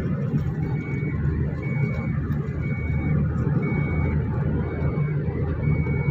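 Car cabin on the move: steady engine and road rumble. A high electronic beep repeats about once a second over the top of it, six times.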